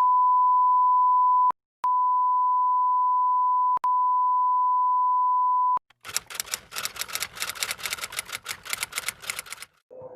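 A steady pure bleep tone, cut into three stretches by two short breaks, of the kind edited in to censor speech. It is followed by about three and a half seconds of rapid, even clicking, about eight clicks a second.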